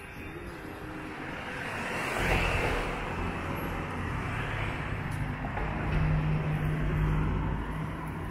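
Motor vehicle engine running with outdoor traffic noise. The engine hum grows louder about two seconds in and stays strong.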